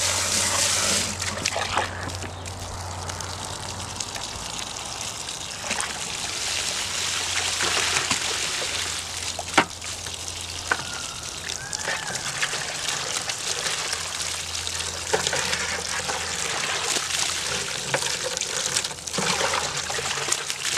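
Water from a garden hose running and trickling into a plastic bucket of red clay dirt, with sloshing as the muddy wash water is poured off from one bucket into another: clay being washed out of classified gravel before it goes through a sluice.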